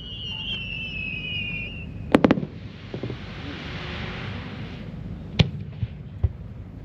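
Aerial firework shells going off: a whistle falling slightly in pitch over the first two seconds, then three sharp bangs in quick succession, a hissing rush for a couple of seconds, and another single bang with a few smaller pops near the end.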